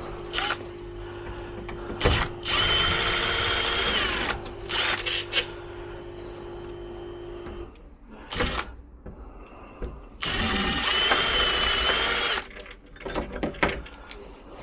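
Power drill running in two steady bursts of about two seconds each, with a short blip of the motor between them. Scattered clicks and knocks come between the bursts.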